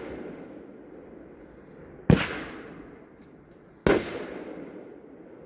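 A 12-shot consumer firework cake firing: two sharp booms, about two seconds apart, each trailing off in a fading rumble.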